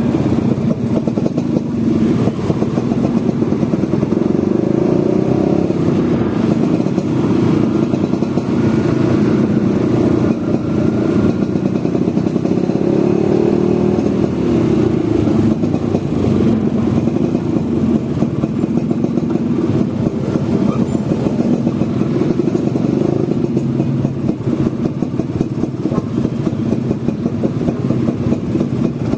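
Vespa scooter engine running on the move, steady throughout with gentle rises and falls in pitch.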